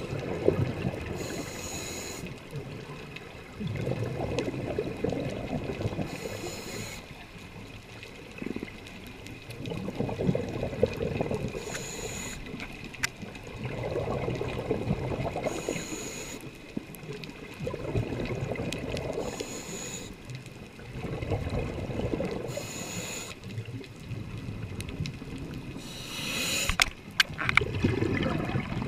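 Scuba diver breathing through a regulator underwater: a short hiss on each inhale, then a longer burble of exhaled bubbles, repeating about every four seconds.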